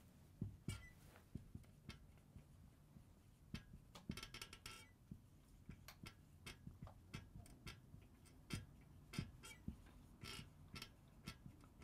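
Marker pen writing on a whiteboard: faint, irregular taps and short scratchy strokes as letters are written.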